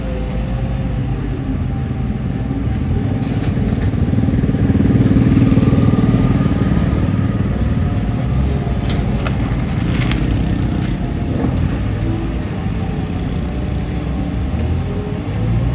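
Motor vehicle engine running with a low rumble, swelling about four to seven seconds in, with a few sharp clicks around ten seconds in.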